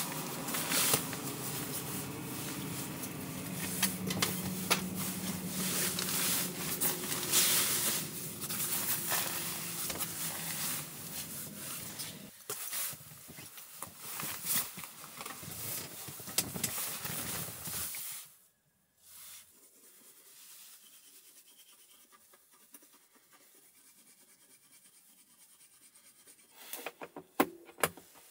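Rustling, rubbing and scraping of things being handled at close range, with sharp clicks, for about eighteen seconds; then it falls quiet apart from a few clicks near the end.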